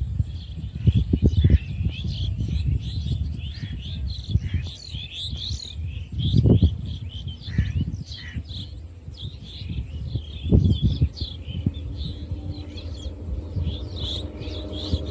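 Many small birds chirping and twittering, with a few low gusts of wind buffeting the microphone. Over the last few seconds a faint steady hum sets in from the distant approaching diesel locomotive.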